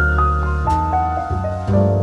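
Background music: a keyboard melody of short held notes stepping from one to the next over a sustained bass.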